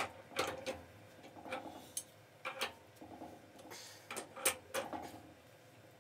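Sharp metallic clicks and knocks, about eight of them at irregular intervals, from a pipe wrench working an old boiler pressure relief valve loose on its threaded fitting.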